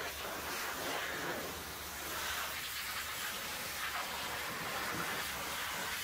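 Pressure washer lance spraying a high-pressure water jet against the steel frame of a concrete mixer truck, a steady rushing spray.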